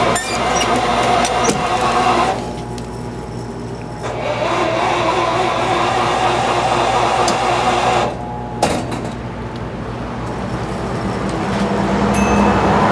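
Retro udon vending machine running through its roughly 25-second cooking cycle: a steady mechanical hum and whir. It grows louder near the end.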